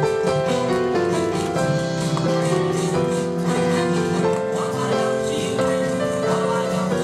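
Music playing continuously, a melody of held notes over a steady accompaniment.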